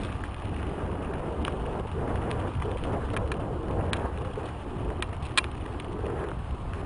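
Mountain bike rolling fast down a dirt singletrack: tyres on dirt and loose gravel and wind rumbling on the microphone, with scattered sharp clicks and rattles from the bike, the sharpest a little past five seconds in.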